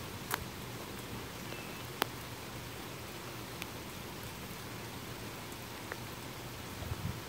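Steady rain, an even hiss, with a few sharp ticks: the clearest about a third of a second in and at two seconds.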